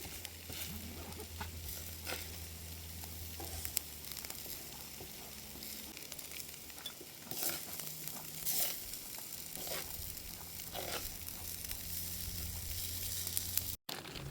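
Food sizzling in a frying pan, with a few short scrapes or clicks in the second half.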